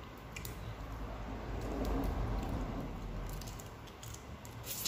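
Close-up eating sounds: chewing boiled shore crab (kasag), soft and squishy, with a few small clicks of shell near the start and near the end.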